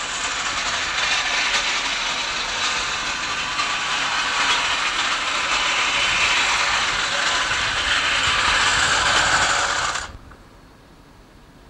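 A loud, steady, rasping mechanical noise that cuts off suddenly about ten seconds in.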